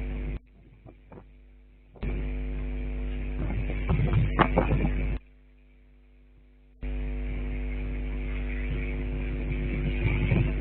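Steady electrical buzzing hum that cuts out abruptly twice for about a second and a half each time, with a few knocks in the middle.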